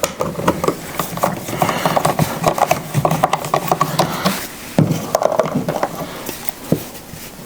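Screwdriver tightening an electrical receptacle's mounting screw into its wall box: a fast, irregular run of small clicks and scrapes.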